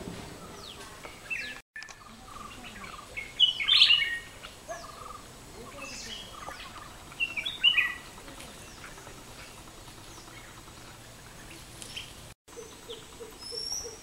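Birds chirping and calling: clusters of short, high notes that glide in pitch, loudest around four seconds in and again around seven and a half seconds.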